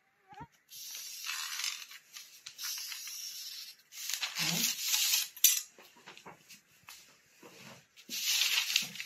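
A large sheet of pattern paper rustling and scraping as hands slide a ruler across it, in several separate strokes of about a second each, with a sharp tap about halfway through.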